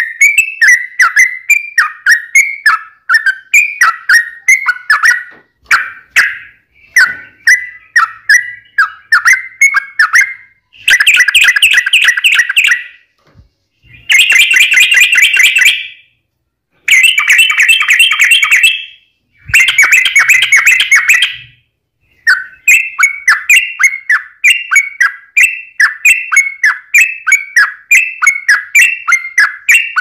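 Yellow-vented bulbul (trucukan) singing a fast fighting song of quick, repeated chirping notes. In the middle it breaks into four dense bursts of rapid chatter, each cut off by a sudden short silence.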